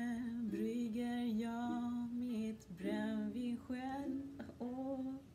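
A woman singing a Swedish song in long held notes, accompanying herself on a ukulele.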